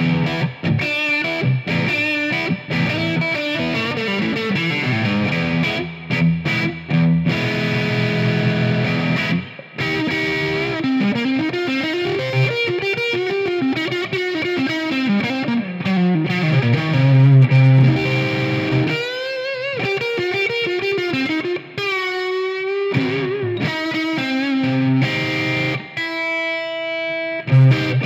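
Squier Made in Japan electric guitar on its neck pickup, played with distortion through a Marshall AVT Tribute amp: chords and riffs, then from about two-thirds of the way in, single sustained lead notes bent upward and shaken with vibrato.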